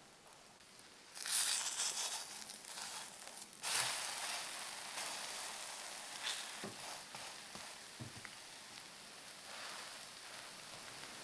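Egg and enoki mushroom pancake sizzling in hot oil in a frying pan as it is flipped to cook the other side. The sizzle flares up loudly about a second in and again near four seconds, then settles into a steady, slowly fading sizzle with a couple of light knocks.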